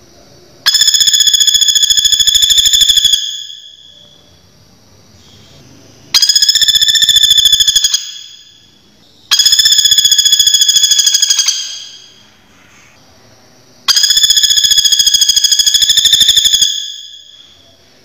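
Common flameback woodpecker (pelatuk bawang) giving its fast rattling trill, four loud calls of about two and a half seconds each.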